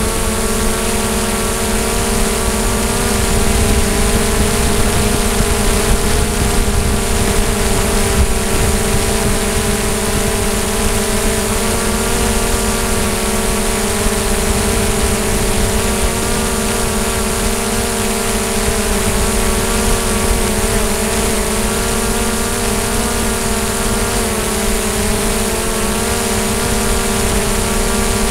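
DJI Mavic quadcopter's motors and propellers whining steadily in flight, a stack of tones that shift a little in pitch now and then, over a low noisy rumble.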